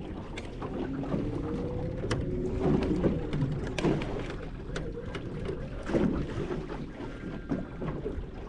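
Wind buffeting the microphone over water noise around a small boat, with scattered light clicks and knocks.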